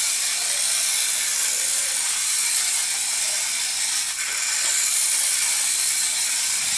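Tiny electric drive motor and plastic gears of an Adventure Force 1:64-scale Nano Racer RC truck whirring steadily as it is driven.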